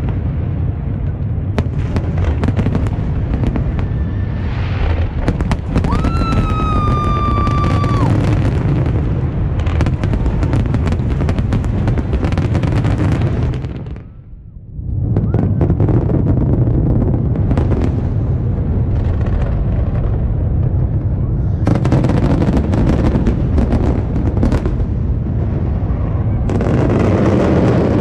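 Aerial fireworks bursting in a continuous barrage of booms and crackle. A high whistle sounds for about two seconds a quarter of the way in, and the barrage drops away briefly for about a second near the middle.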